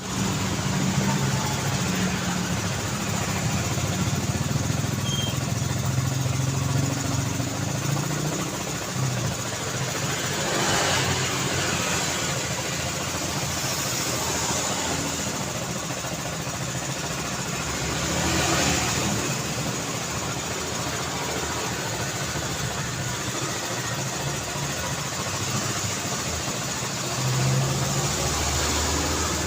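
Road traffic: a steady hum of car engines and tyres, with vehicles passing close by about 11, 19 and 28 seconds in.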